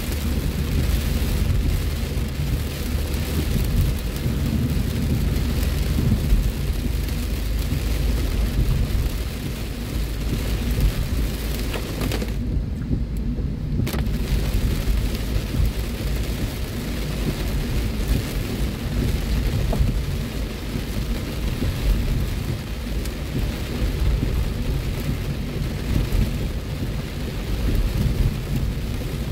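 Heavy rain drumming steadily on a car's roof and windshield, heard from inside the moving car over a low road and engine rumble. The rain's hiss drops away for about a second and a half midway, then returns.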